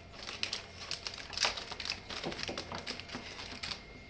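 Rapid, irregular light clicks and taps, several a second.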